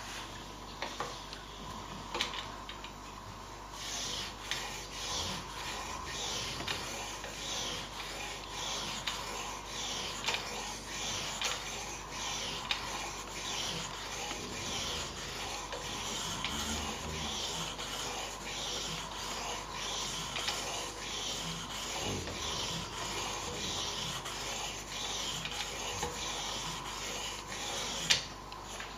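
Sharpening stone of a Ruixin Pro II guided system stroked back and forth along a knife's steel edge, a quick, even rasping that starts about four seconds in. A few sharp clicks, the loudest near the end.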